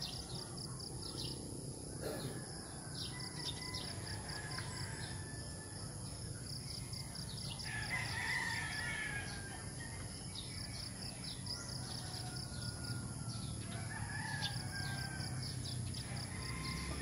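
Roosters crowing, one crow about halfway through and another near the end, over small birds chirping in quick runs of short notes and a steady high whine.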